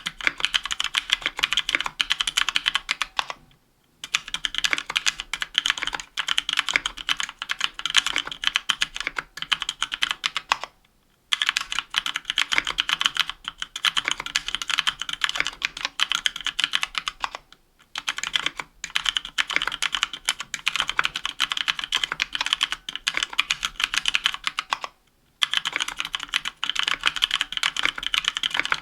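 Fast continuous typing on a 60% aluminium-case mechanical keyboard with Kailh Pro Purple tactile switches and GMK keycaps, a rapid patter of key clicks. It stops in short pauses between bursts several times.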